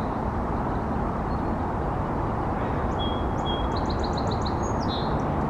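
Steady low rumble of distant road traffic. About three seconds in, a small bird sings a brief high phrase: two thin whistled notes, then a quick run of repeated chirps ending in a short buzzy note.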